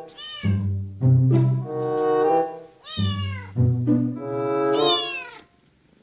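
A cat meowing three times, each a high, falling cry, over background music of steady held notes.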